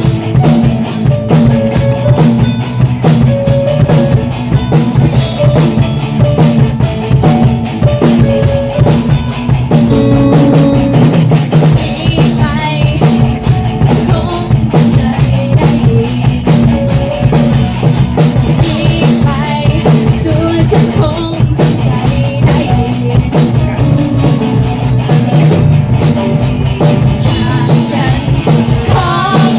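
A live rock band playing, with a busy drum kit and steady beat under pitched instruments.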